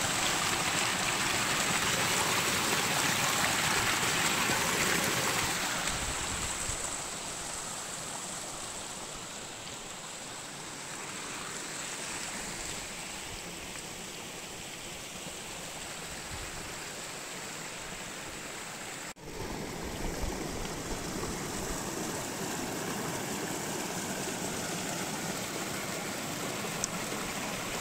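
Mountain stream water rushing and splashing over rocks in small cascades, loudest for the first several seconds, with a brief drop about 19 seconds in.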